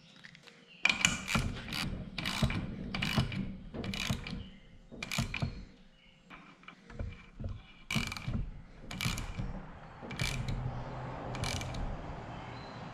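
Hand ratchet clicking in repeated short strokes, starting about a second in, as threaded bushings are tightened into the ports of a hydraulic loader valve.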